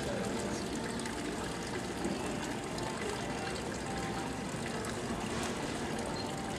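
Steady rushing, water-like noise, even and unbroken throughout.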